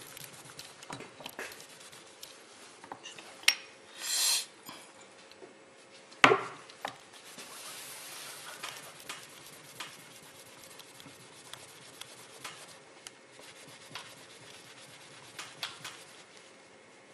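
Hand polishing: a cloth rubbing a small metal piece on a workbench, with scattered small clicks and scrapes. A brief hiss comes about four seconds in, and a single sharp knock, the loudest sound, just after six seconds.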